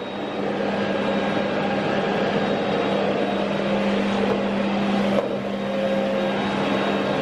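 Vacuum cleaner running steadily while its floor nozzle is pushed across a rug, a constant hum under a broad rushing noise. The sound changes briefly about five seconds in.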